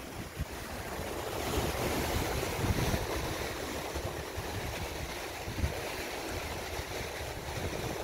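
Loud sea waves breaking and washing over dark boulders on a rocky shore, a steady rushing surf that swells about two seconds in. Low gusts of wind buffet the microphone now and then.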